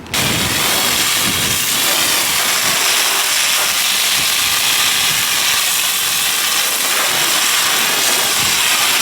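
Water spraying steadily onto a car's body and windows during a wash, a loud continuous hiss.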